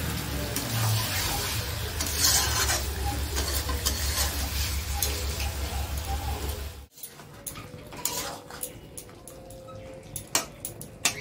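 A metal spatula stirring and scraping mutton in masala around an aluminium kadai, with the meat sizzling as it is slow-fried (kosha). About seven seconds in the sound cuts off abruptly and goes quieter, leaving only scattered scrapes and taps of the spatula on the pan.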